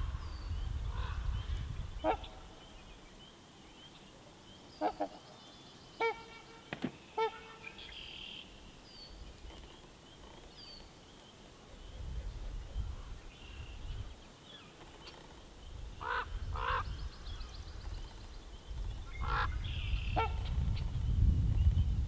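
Trumpeter swans calling: short, horn-like honks, about a dozen spread through the stretch, some in quick pairs. Faint high chirps sound now and then, and a low rumble comes and goes underneath.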